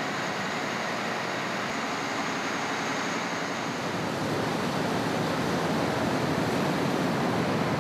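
Steady rushing of churned water in a river cruise ship's propeller wake, growing a little louder and deeper about halfway through.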